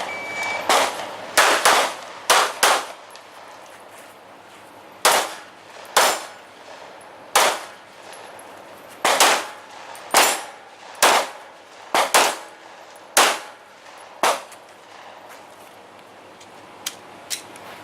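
A string of about fifteen gunshots at an uneven pace, with metallic clangs of rounds striking steel targets. The shooting stops a few seconds before the end, leaving two faint clicks.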